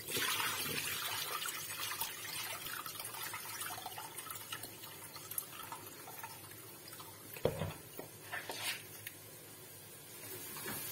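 Rinse water being tipped out of a bowl of red lentils, rice and bulgur into a kitchen sink, with a hand swishing the wet grains; the pouring is loudest in the first couple of seconds and then tails off. A single dull knock comes about two-thirds of the way through.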